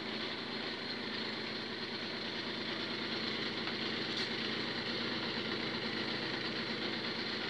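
Home cotton candy machine running: its small electric motor and spinning head make a steady whirring hum as sugar floss is spun out into the bowl.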